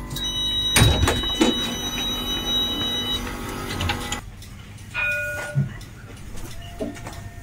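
Tram passenger doors at a stop: a steady high warning tone sounds for about three seconds alongside the knock of the doors sliding. After it cuts off, short separate beeps follow twice.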